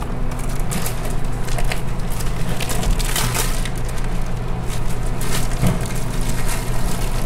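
Clear plastic vacuum-pack bag crinkling and crackling in irregular bursts as it is pulled and peeled off a large block of raw beef, over a steady low hum.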